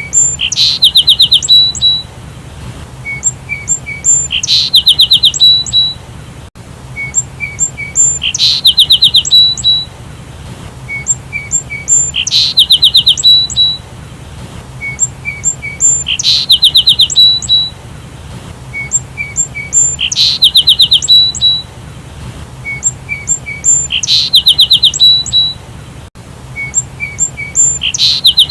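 Sparrow calls: a short phrase of a few soft chirps followed by a fast rattling run of notes, repeated the same way about every four seconds.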